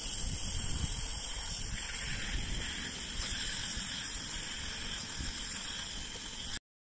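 Coal fire in a home-made breeze-block furnace burning hard under a compressor's air blast: a steady rushing noise with a low rumble, cutting off suddenly near the end.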